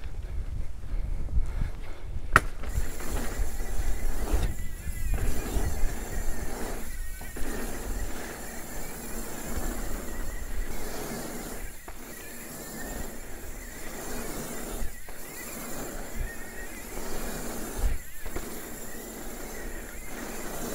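Custom steel Dawley Rallye hardtail mountain bike riding over stone slabs and then along pavement: steady tyre rumble and wind rush, with one sharp knock about two seconds in.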